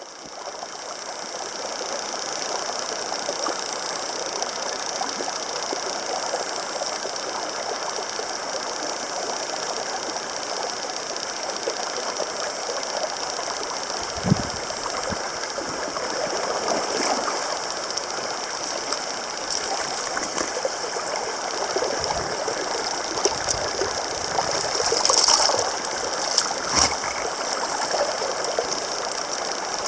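Clear mountain stream running steadily over a rocky bed, with a few knocks, one about halfway through and a couple near the end.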